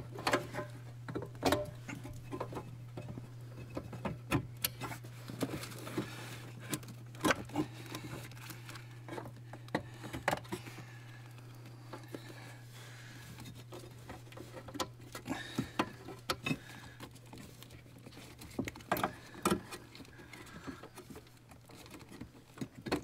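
Plastic wiring-harness connectors and clips being handled and pushed into place: scattered light clicks and rustling of the wire loom over a steady low hum.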